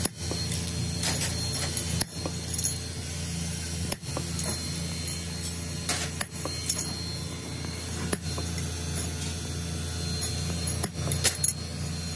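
Scattered sharp metal clinks and taps as chromed steel L-handle socket wrenches are worked with a punch on a steel block, over a steady low machinery hum.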